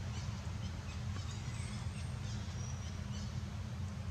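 Outdoor ambience: a steady low rumble, with a few faint, short, high bird chirps.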